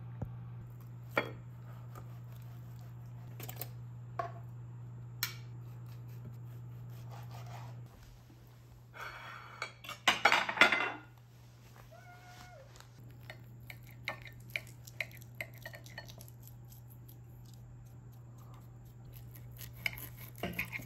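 Table and kitchenware sounds: a steady low hum with a few sharp clicks, then plates and cutlery clattering loudly about ten seconds in, followed by a knife and fork clicking against a ceramic dinner plate as steak is cut.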